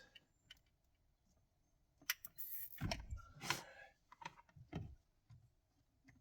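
Scattered light clicks and rustles of wiring being bundled up and tucked away by hand, starting about two seconds in.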